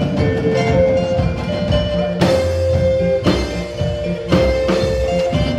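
Live worship band playing an instrumental passage: drum kit, bass guitar and a held melodic line, with strong drum hits about once a second through the middle.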